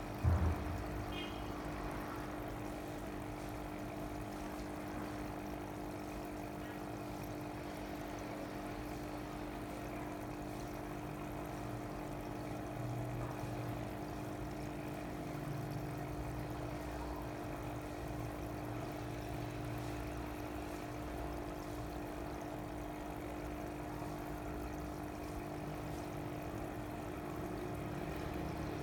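Water steadily pouring and trickling in fish tanks over the even hum of running pumps.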